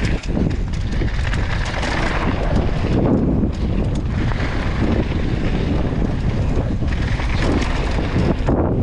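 Strong wind buffeting the action camera's microphone: a steady low rumble that swells and dips with the gusts.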